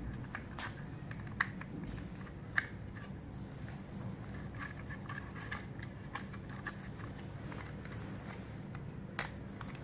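Handling clicks and taps as a PoE to USB-C adapter is pushed and seated into its mounting bracket: a few sharp clicks, the loudest about a second and a half in, again a second later and near the end, over a steady low hum.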